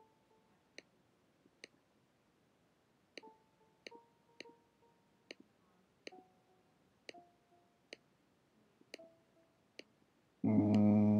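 Computer clicks as MIDI notes are drawn into a piano roll, many of them followed by a short synth-string note sounding the pitch just placed, at a different pitch each time. Near the end a much louder, low, many-toned synth sound plays for under a second and cuts off sharply.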